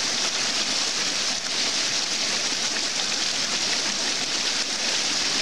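Small cascade of fresh runoff water splashing steadily over rocks, with water pouring into a Platypus plastic water bladder held in the falling stream.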